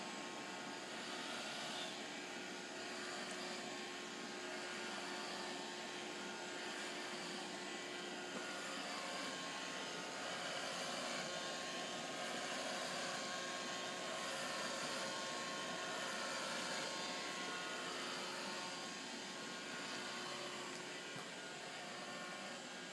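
Roomba robot vacuum running, a steady motor and brush whir with a faint constant hum.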